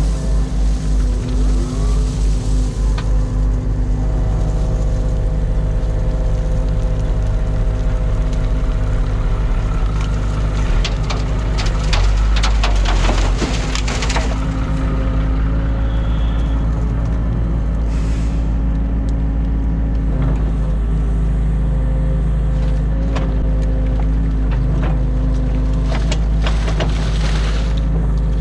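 New Holland Kobelco E50.2 mini excavator's diesel engine running steadily under hydraulic load as it works. About halfway through comes a run of knocks and scrapes as the bucket unloads silt and branches onto a tipper truck's steel bed.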